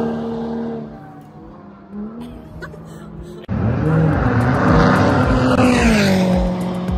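A race car's engine note fading away in the first second. After an abrupt cut about halfway, a race car passes close and loud, its pitch wavering and then dropping as it goes by.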